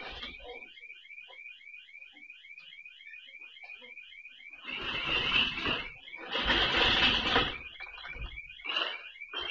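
Intruder alarm siren chirping rapidly, about five high chirps a second. Halfway through come two loud crashing noises, each over a second long, as the showroom's glass door is smashed and forced open, followed by a few smaller knocks near the end.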